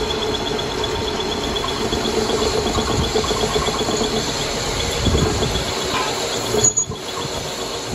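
Metal lathe running, its cutting tool turning a forged steel truck axle spindle: a steady mechanical rumble with a faint fast ticking, cutting out briefly about seven seconds in.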